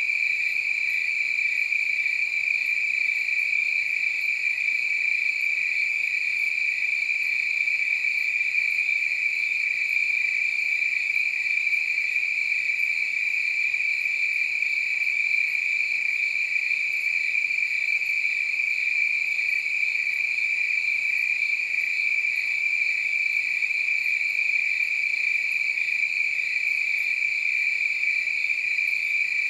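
A chorus of crickets chirping steadily at one high pitch, without a break.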